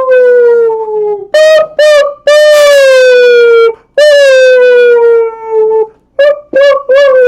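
A person howling loudly in imitation of a coyote. Several long howls drift slowly down in pitch, broken by short yips.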